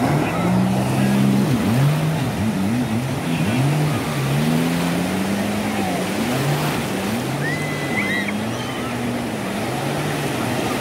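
Jet ski engine running, its pitch rising and falling over and over as the craft heads out through the waves, over the steady wash of breaking surf.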